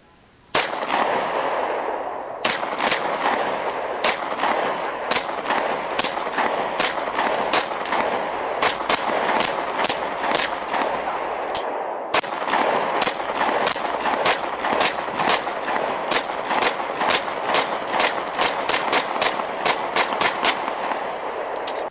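Beretta Neos U22 .22 LR pistol fired over and over, dozens of sharp shots at an uneven pace, at times about two a second, with a short break about halfway. A steady rushing noise runs under the shots.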